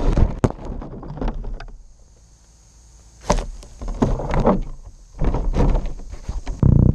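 Knocks, clatter and rustling handling noise from a red RC rock crawler and its mounted camera as the truck tumbles over rocks and is picked up by hand and set back on its wheels. It comes in several irregular bursts, the heaviest a deep thump near the end.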